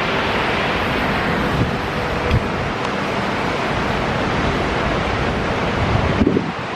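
Large wall-mounted patio fans running, a steady loud rush of moving air.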